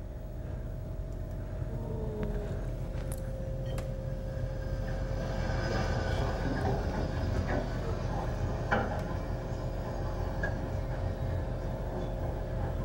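CH-47 Chinook helicopter's twin turboshaft engines and tandem rotors running on the ground, heard from a video soundtrack played over a classroom loudspeaker. It is a steady low rumble with a steady whine, growing slightly louder, and a few faint clicks.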